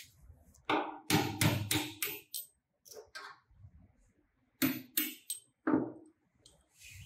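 Hammer striking the ends of the motor-mounting bolts under a wooden sewing-machine table, knocking the tight bolts up and out: sharp metallic knocks with a slight ring, a quick run of about six, two lighter taps, then four more a second or so later.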